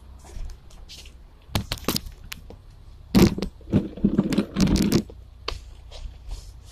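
Handling noise from a phone being set up: a few sharp clicks, then about two seconds of loud rubbing and scraping against the microphone.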